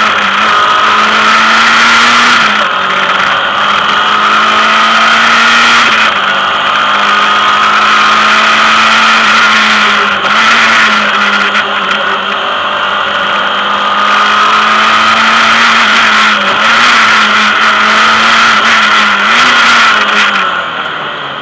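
Lancia Delta rally car's engine heard from inside the cockpit, running hard at high revs under load, its pitch dipping briefly several times. Near the end the engine comes off the throttle and the sound drops.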